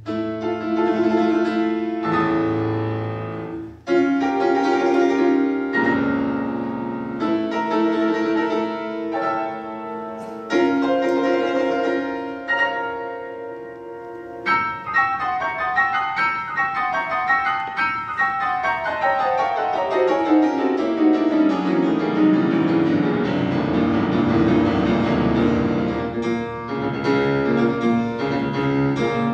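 Grand piano playing a concerto passage: big sustained chords struck every few seconds for about fourteen seconds, then fast runs of notes sweeping down and back up.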